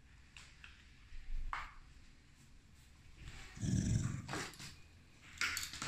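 A dog making a short low vocal sound a little over halfway through, with a few fainter brief sounds before and after it.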